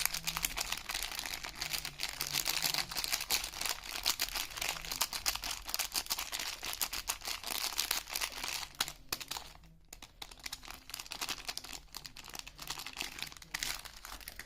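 Soap packaging being crinkled and torn open by hand: a dense run of crackling and rustling, with a short lull about two thirds of the way through.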